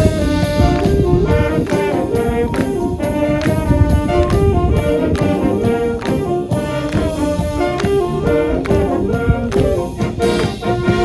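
High school marching band playing: brass (trumpets and trombones) carrying the tune over a steady marching drum beat.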